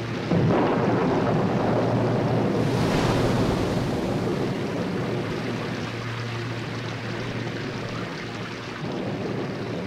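Storm-at-sea sound effects: wind and crashing waves surge up suddenly about a third of a second in, then slowly ease off.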